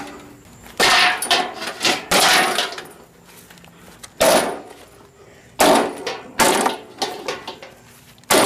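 A lawnmower being smashed: about seven hard, irregularly spaced blows and kicks against its body, each a loud crashing impact.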